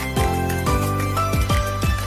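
Background music with a steady beat: a low drum hit about twice a second under sustained melodic tones.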